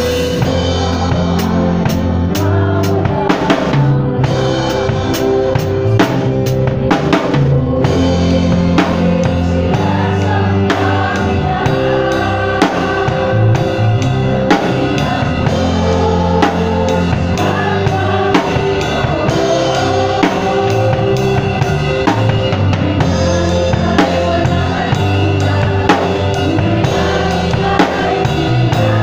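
Live band playing a steady-tempo song with the drum kit up front, regular kick and snare hits and cymbals, over bass guitar, keyboard and guitars.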